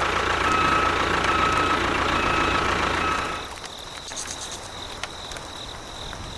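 Small motor of a miniature model tractor running steadily, then cutting out about three and a half seconds in, leaving only a faint steady high-pitched whine.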